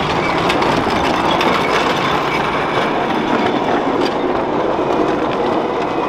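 Miniature ride-on park railway train running past close by: a steady rumble of its wheels on the small-gauge track, with faint clicking.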